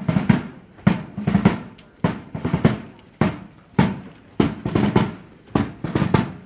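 Military side drum beaten in a marching cadence: a sharp accented stroke about every 0.6 seconds, with quicker rolled strokes between them.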